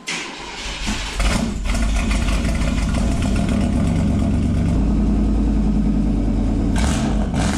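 Car engine starting, then running steadily with a deep low rumble that gets louder about a second in.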